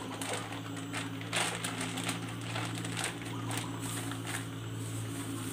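A plastic bag rustling and crinkling in irregular bursts as crumbled jam-roll cake is shaken and squeezed out into a plastic tub, with a steady low hum underneath.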